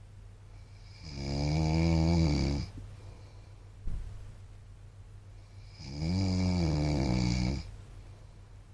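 A man snoring in his sleep: two long snores, each about a second and a half, about five seconds apart. Between them there is a short click.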